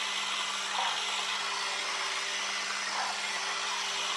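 Haynes HM04R model four-cylinder engine kit being turned over by its small electric motor: a steady whirr of the motor and plastic gears and moving parts, with a low hum underneath.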